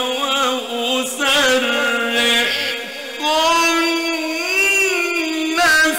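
A male reciter chanting the Quran in the slow melodic style, drawing out long ornamented notes: one held note, then, after a brief dip, a higher note that rises and falls.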